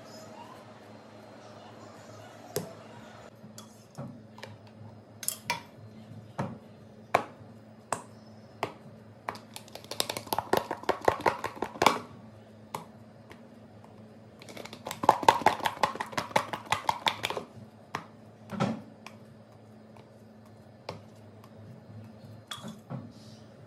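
Parotta dough balls being tossed about in a plastic container: two runs of rapid soft knocking, about two seconds each, a little under halfway and about two thirds of the way in, with scattered single taps of dough handling before, between and after.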